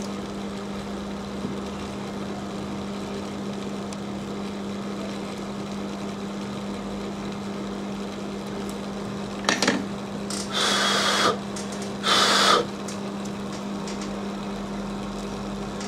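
A steady low electrical hum at one even pitch runs under soldering work at a phone battery connector. About nine and a half seconds in come a couple of light clicks, then two short hissing bursts about a second and a half apart.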